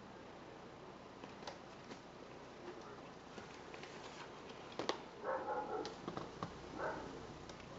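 Cat's claws catching and scratching on a sisal scratching post and carpet as it bats at a feather toy, with scattered light clicks and rustles. A sharp click just before halfway, followed by a short voice-like sound twice.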